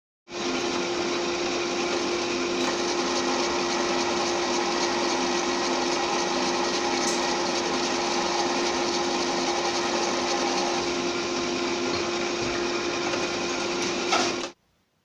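Electric drill running steadily under load, boring 5/16-inch holes into a mild steel block, with a constant-pitch motor hum. It starts just after the beginning and stops abruptly near the end.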